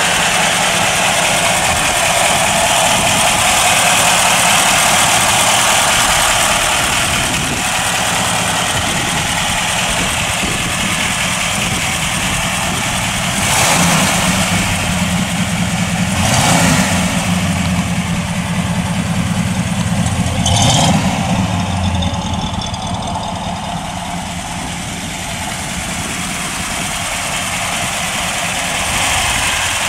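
1932 Marmon Sixteen's 8.1-litre aluminium sixteen-cylinder engine idling steadily. Its revs rise briefly three times in the middle stretch, then settle back to idle.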